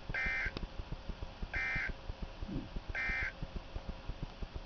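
Emergency Alert System end-of-message data bursts over weather radio: three short, identical digital squawks about a second and a half apart, marking the end of the severe thunderstorm warning.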